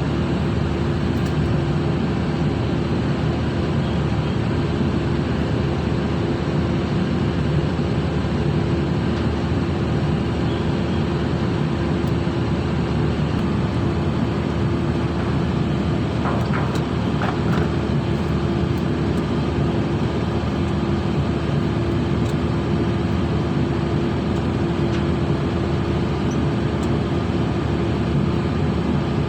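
Ship's machinery running, a steady drone with a constant hum.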